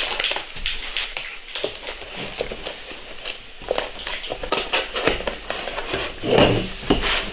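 Cardboard box and foam packaging being handled: scattered rustles, scrapes and light knocks as the insert is pulled out and the box is lifted and turned, with a longer scrape about six seconds in.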